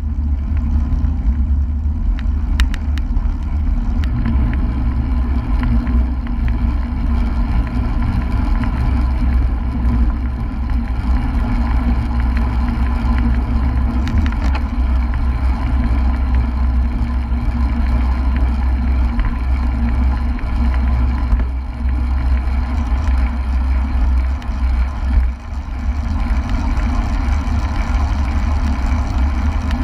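Wind rushing over a bike-mounted action camera's microphone while a road bike rides at about 30 to 45 km/h, a loud steady low rumble with the hiss of tyres on the road beneath it.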